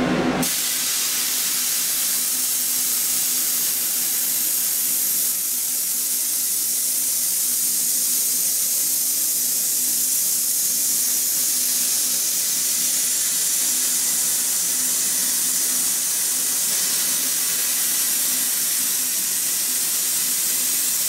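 CNC plasma cutter torch cutting through 1-inch steel plate: a loud, steady hiss of the arc and air stream with a steady low hum under it, starting abruptly right at the beginning.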